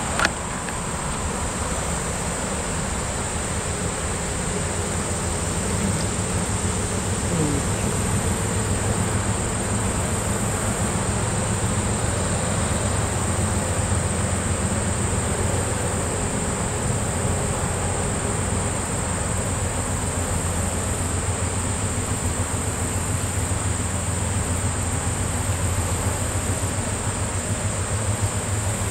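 A steady, high insect chorus over the low, even running of a diesel locomotive engine, the Cuyahoga Valley Scenic Railroad's FPA-4 No. 6777, with its rumble growing a little stronger partway through. A single sharp knock right at the start.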